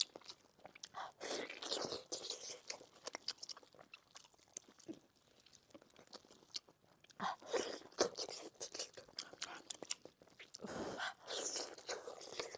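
Close-miked chewing and biting of fatty braised pork knuckle with garlic sauce: wet mouth sounds with sharp clicks. It comes in three busier spells, about a second in, around seven seconds and near the end, with quieter chewing between.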